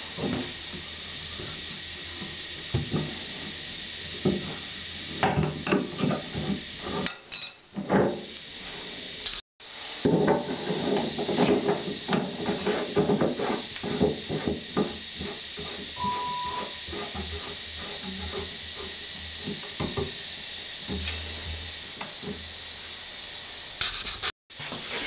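Hand-work on a wall-mounted water tap: a tap being unscrewed from the wall outlet and a chrome stop tap screwed on, with many small metal clicks, clinks and scrapes over a steady hiss.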